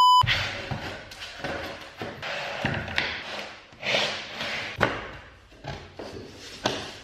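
A brief steady test-tone beep at the very start, then several thuds and knocks with scraping in between as laminate floor planks are handled and fitted into place.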